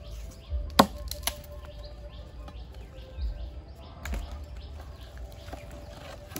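Knife or cleaver chopping on a wooden cutting board: a handful of sharp, irregular strokes, the loudest about a second in.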